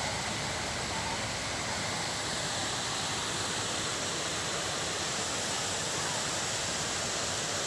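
Waterfall rushing: a steady, even roar of falling water that neither rises nor falls.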